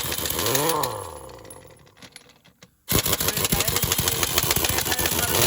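An engine running, just started. Its pitch rises and falls over the first two seconds, and after a brief break it runs with a fast, even chatter.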